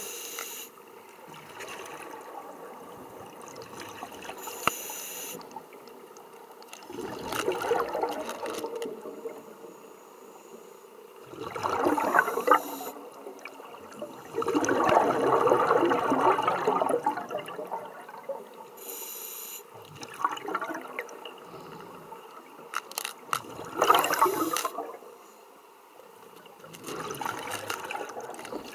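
Scuba diver's exhaled air bubbling out of a regulator underwater, in bubbly bursts every few seconds, the longest about three seconds, with a quieter hiss between breaths.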